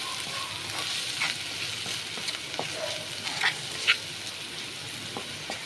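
Onion, garlic, capsicum and tomato masala sizzling in oil in a pan as a spoon stirs it, with scattered short scrapes of the spoon against the pan.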